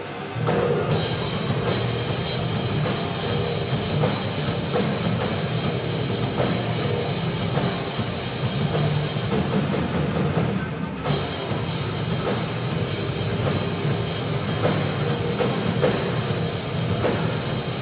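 A rock band playing live: drum kit, electric guitars and bass guitar. The cymbals drop out for a moment about eleven seconds in before the full band comes back in.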